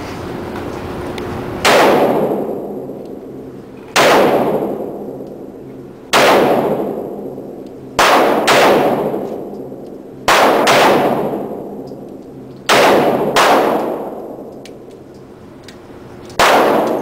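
Gunshots at a firing range: about ten loud shots, several in quick pairs, each followed by a long echoing decay.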